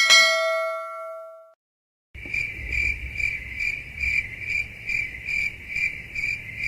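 A single metallic ding that rings out and fades over about a second and a half. After a short gap, a steady high-pitched tone with a low hum beneath it starts, pulsing a little over twice a second like an electronic alarm or ringer.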